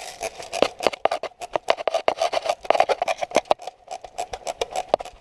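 Airsoft guns firing rapid, irregular strings of sharp cracks, several a second, over a steady high hum.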